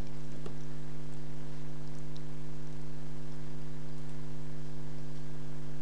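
Steady electrical hum with a buzz of evenly spaced overtones, and a couple of faint clicks near the start.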